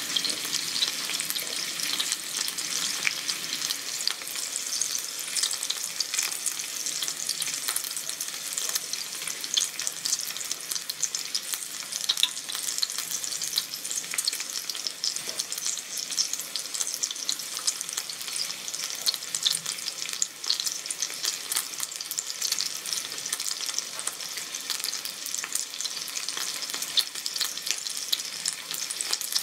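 Thick beef steak sizzling in oil on an electric griddle: a steady, dense crackle of fine spits and pops.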